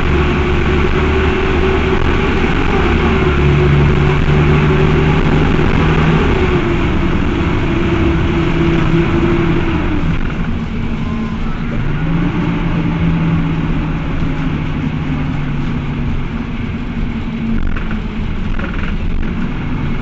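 Cummins ISBe four-cylinder diesel of an Agrale MT12.0 LE midibus running under way, with the engine's radiator fan engaged and blowing, a sign of an engine that runs hot easily, as these Cummins units were known to. The engine note drops about halfway through and climbs again a couple of seconds later.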